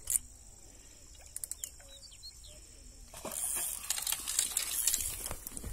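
A hooked fish thrashing and splashing at the water's surface at the bank, starting about three seconds in and going on in quick irregular splashes. A single sharp click comes right at the start.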